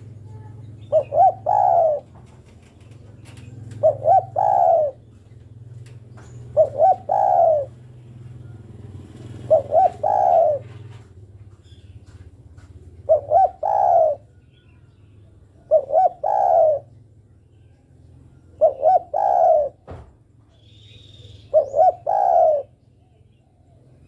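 Spotted dove cooing, a call the title gives as a female calling for a male. It repeats a three-note phrase, two short notes and then a longer one, eight times at about three-second intervals.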